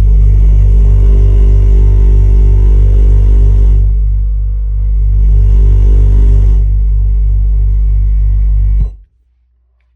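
Loud, bass-heavy background music with a steady pulse of about four beats a second, cutting off suddenly about nine seconds in.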